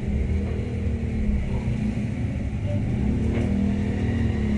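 A steady low mechanical hum and rumble, even in level with no clear starts or stops.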